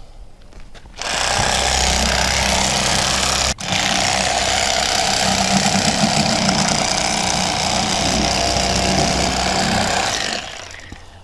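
Rapala electric fillet knife running, its motor-driven reciprocating blades buzzing steadily as they cut a fillet from a walleye. It starts about a second in, cuts out for an instant, then runs on until it winds down near the end.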